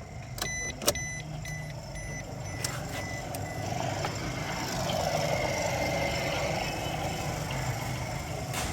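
Car engine running with a steady low hum, while an electronic beep repeats in short pulses for the first three seconds. From about four seconds in, a louder rushing noise builds over the engine.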